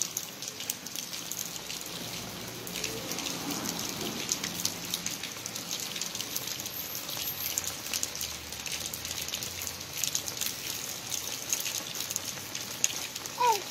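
Steady rain falling on a wet paved street and sidewalk, a constant hiss with many small drop impacts.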